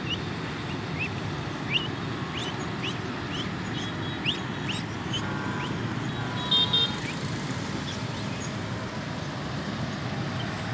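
Steady low rumble of road traffic, with a series of short rising chirps about twice a second through the first six seconds and a quick double horn toot about six and a half seconds in.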